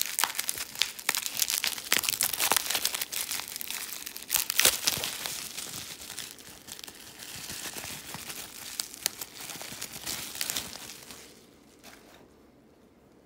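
Plastic bubble wrap being pulled apart and unwrapped from a graded coin slab, crinkling with many sharp crackles. The rustling dies away about eleven seconds in.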